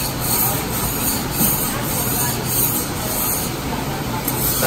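Metal spatula scraping back and forth across a hot steel teppanyaki griddle during cleaning, about two hissing strokes a second, stopping a little before the end.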